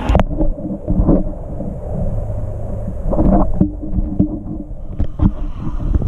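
Water slide run ending: the rushing noise of the slide cuts off suddenly right at the start, giving way to muffled, low sloshing of water with scattered dull thumps.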